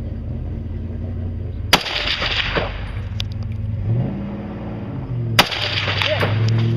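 Two rifle shots fired close by, about three and a half seconds apart, each trailing off in a short echo, over a steady low hum.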